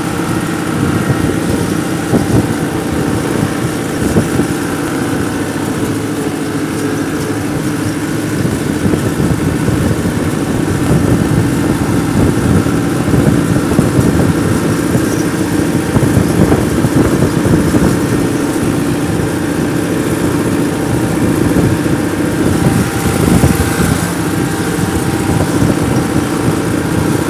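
Small engine of a handmade miniature MF 385 tractor running steadily, a fast even chugging with a steady drone.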